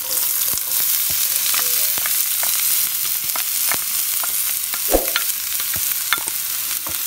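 Chopped onions sizzling and crackling in hot coconut oil in a frying pan, the sizzle starting as they are dropped in. There is one brief knock about five seconds in.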